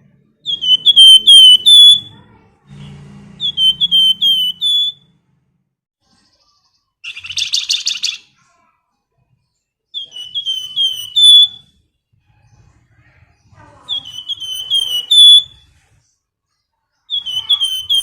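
A flamboyan songbird calling in repeated phrases of four or five quick, sharp whistled notes, five phrases with pauses between, and one harsh buzzy rattle about seven seconds in.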